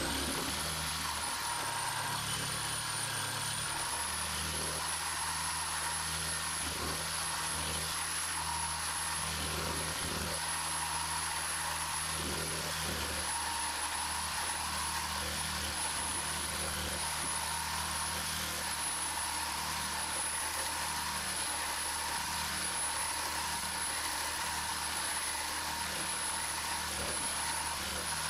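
Cordless reciprocating saw running steadily, its carbide-tipped blade cutting through a steel railway rail, with a high, steady whine.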